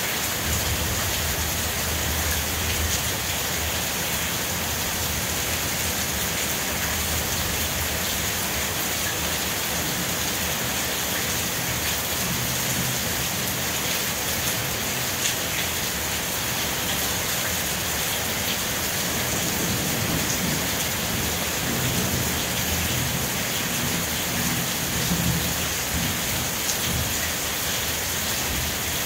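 Steady rain falling on a yard and garden: a constant hiss with scattered drop ticks. A low rumble comes in briefly near the start and again about twenty seconds in.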